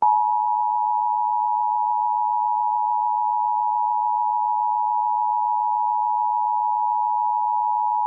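Emergency Alert System attention signal: two high steady tones sounding together as one unwavering electronic alarm tone, coming in suddenly at full level and held without change.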